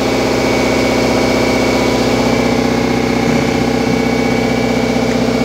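An engine running steadily at a constant speed, with a thin steady whine above it.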